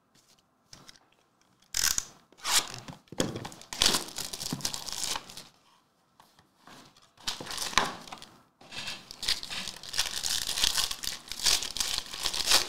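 Plastic wrapping and a foil trading-card pack crinkling and tearing in hands as a Topps Museum Collection box and pack are opened. The sound starts about two seconds in and comes in bursts, with a pause near the middle.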